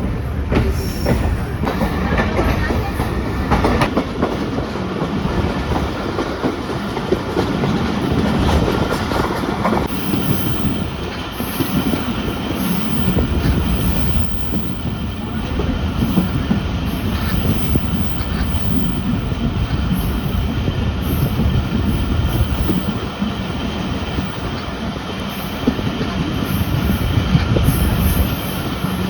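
Pakistan Express passenger train running on the rails: a steady rumble of wheels and coaches with some clickety-clack over the joints. A faint, thin, high squeal from the wheels joins about a third of the way in.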